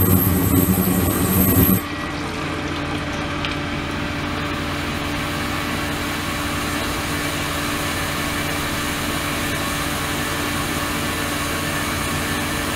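Steady machine hum and rushing water from an ultrasonic tank with water flowing through it. About two seconds in, a louder low rumble and a high whine stop, leaving a quieter, even hum with a few fixed tones.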